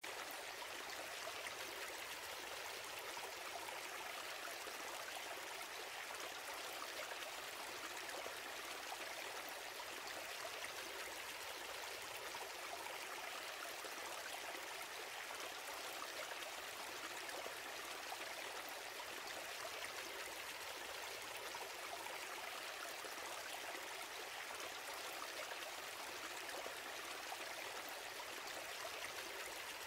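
Steady, even rushing hiss with no breaks or changes, lying mostly in the middle and high pitches with little low rumble.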